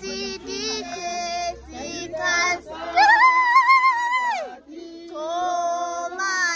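High voices singing, with long held notes that waver in pitch and short breaks between phrases.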